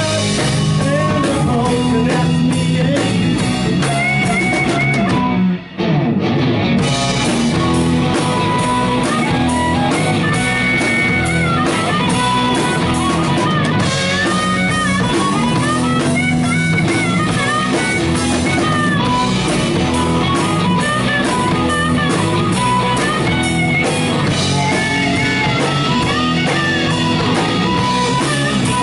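Live rock band playing an instrumental passage: electric guitar, bass and drum kit, with wavering held lead notes that fit a harmonica. The whole band stops for a split second about six seconds in, then comes straight back in.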